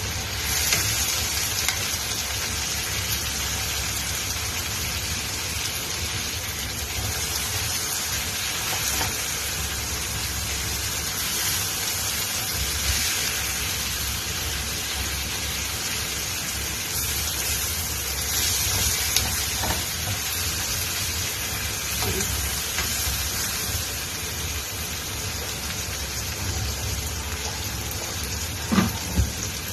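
Chicken pieces and sliced onions sizzling steadily in a nonstick frying pan on a gas burner, with a wooden spatula stirring and turning them, over a low steady rumble. A few light knocks of the spatula on the pan come near the end.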